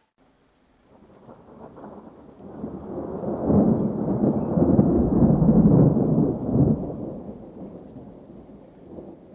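A deep rumbling noise with no clear pitch, like a roll of thunder. It swells over the first few seconds, is loudest in the middle and slowly fades away.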